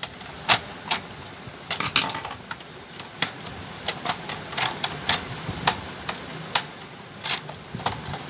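Irregular sharp clicks and taps of plastic and metal parts as an opened Epson L130 inkjet printer's paper-feed gears and rollers are worked on by hand with a tool, about two or three clicks a second.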